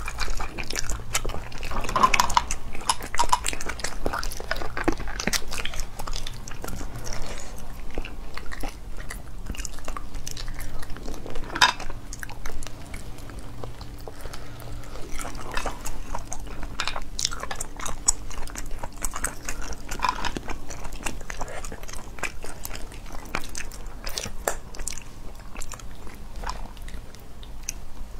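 Eating sounds: chewing, smacking and slurping of cooked sea snail meat picked from the shells with toothpicks, with many short sharp clicks scattered throughout.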